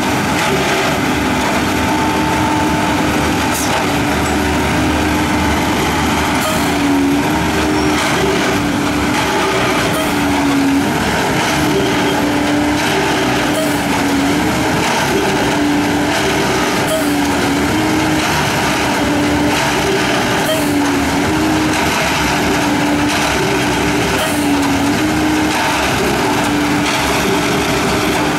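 Harsco 6700 SJ2 railway tamping machine at work: engine and hydraulics running in a steady loud din, with a hum that steps up and down in pitch every few seconds as the machine cycles, and occasional metallic clanks.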